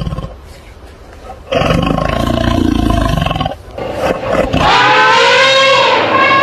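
Movie T. rex roar sound effect, made by layering animal calls: deep rumbling growls, then near the end a long, high, wavering scream.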